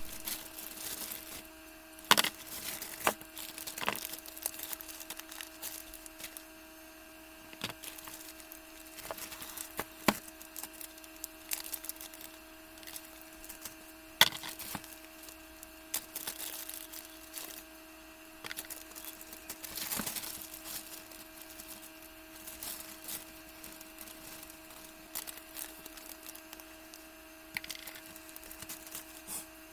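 Irregular clicks and knocks of tools and parts being handled on a workbench, a few of them sharp, over a steady electrical hum.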